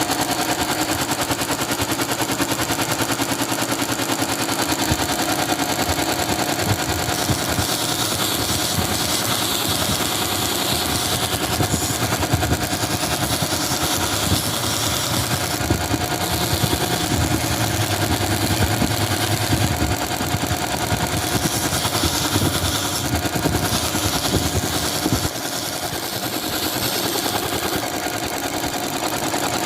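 A 2 x 72 inch belt grinder running steadily, with the rasping hiss of a knife's walnut handle being sanded against the belt, swelling and easing several times as the piece is worked.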